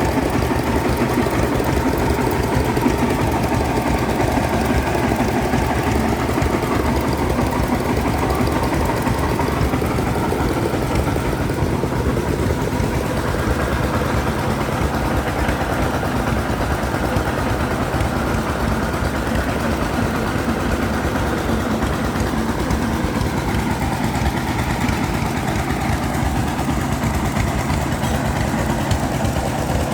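An old engine running steadily at an even speed.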